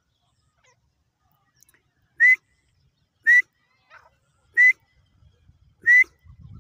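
Dakhni teetar (francolin) calling: four short, loud notes about a second and a quarter apart, each rising a little in pitch.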